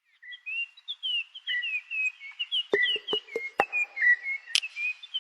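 Birds chirping in a quick run of short, high, falling notes. From about halfway through, sharp clicks or knocks come in among them, several a second.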